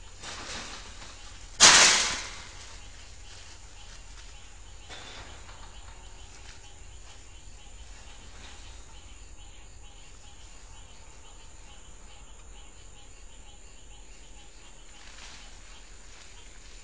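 Night-time outdoor background with faint insects, broken about a second and a half in by one sudden loud noisy burst that fades within about half a second.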